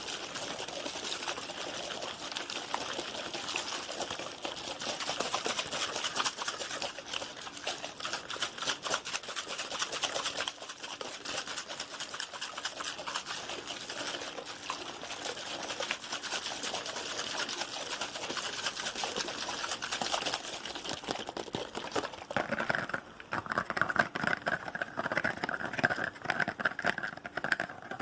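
Fast, aggressive ASMR tapping, a dense run of rapid clicks, mixed with water sounds. About 22 seconds in the texture changes to a more uneven, duller tapping.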